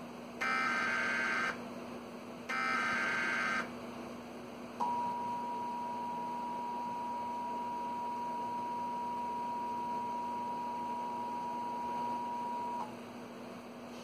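Emergency Alert System broadcast over a TV: two of the warbling SAME data-header bursts, each about a second long, then after a short gap a steady two-tone attention signal held for about eight seconds, the signal that opens a severe thunderstorm warning. A faint steady hum lies under it all.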